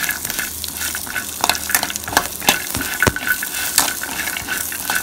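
Peanuts and green chillies roasting in a little oil in a steel pan, stirred with a steel spoon: a light sizzle with irregular clicks and scrapes of the spoon against the pan and the nuts.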